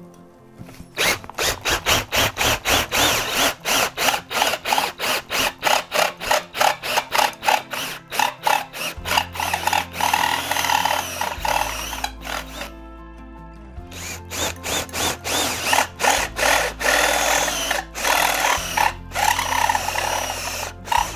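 Cordless drill running a step drill bit through a thin aluminium switch plate, cutting two switch holes one after the other with a short pause between them about two-thirds of the way through. Background music with a beat and bassline plays under it.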